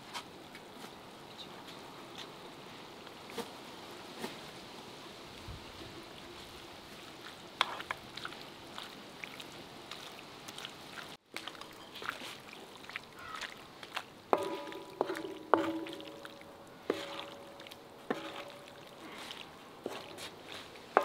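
Beef and green peppers sizzling steadily in a large metal pan. In the second half a wooden spatula stirs and scrapes the meat, with sharp knocks against the pan that leave the metal ringing briefly.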